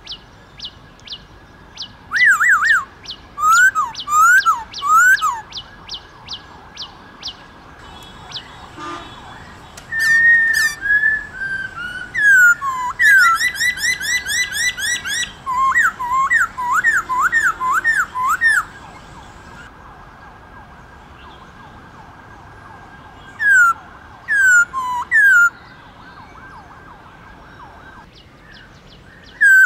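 Black-throated laughingthrush singing: loud, clear whistled notes that slide down in pitch, delivered in quick bursts of several notes with pauses between. A fast series of high ticking notes runs through the first several seconds.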